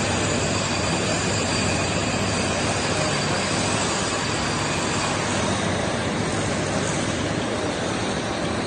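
Sanco SHM 11025R CNC horizontal boring mill running: a steady mechanical hum with a faint high whine over it that fades about halfway through.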